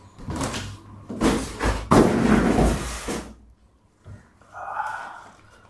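Cardboard box and packaging scraping and thumping as a 7 kg monitor is lifted out, with rustling of its white foam wrap; the loudest stretch is about two seconds in.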